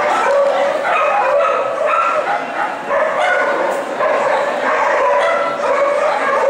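Steady din of many dogs barking and yipping at once, with people's voices mixed in.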